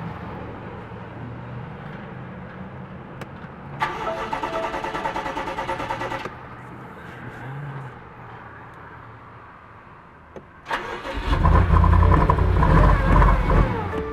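2022 BMW M5 Competition's twin-turbo V8 being started on jump-starter power: a first crank of about two seconds that doesn't catch, then about four seconds later a second attempt on which the engine fires with a loud start-up rev.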